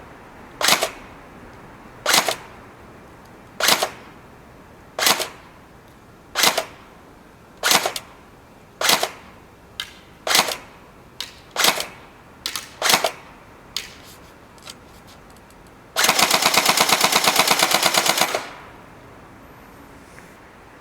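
Tokyo Marui AA-12 electric airsoft shotgun firing single shots about a second and a half apart, with a few fainter clicks between them, then a rapid full-auto burst of about two seconds.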